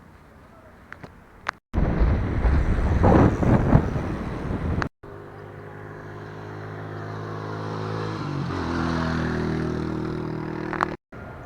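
Motor vehicle on the road: loud wind and road rush, then an engine running with a steady hum whose pitch shifts about two-thirds of the way through. The sound drops out briefly at a few abrupt cuts.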